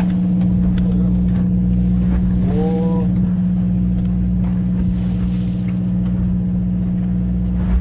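Fishing boat's engine running with a steady low hum, over the wash of a swell along the hull. A short rising-and-falling voice-like note comes about two and a half seconds in.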